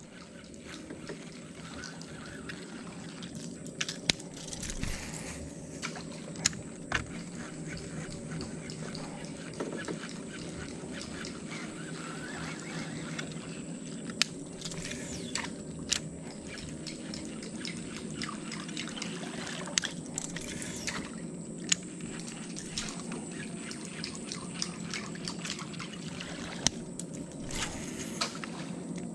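Water trickling and lapping around the hull of a small boat moving slowly along a creek, over a steady low hum. Many sharp clicks are scattered throughout, and a thin high whine fades out near the end.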